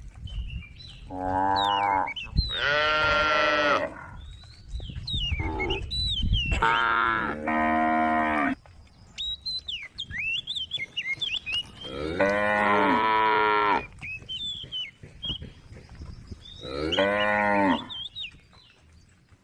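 A cow mooing repeatedly, about six calls of a second or two each. Small birds chirp in the gaps between them.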